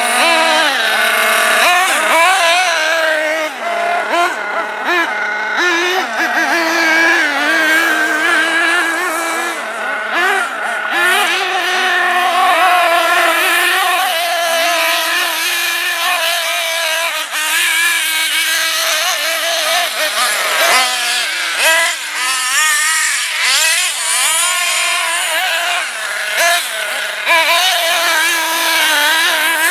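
Small two-stroke nitro glow engine of a 1/8-scale RC car running at high revs, its pitch swinging up and down continually as the throttle is worked.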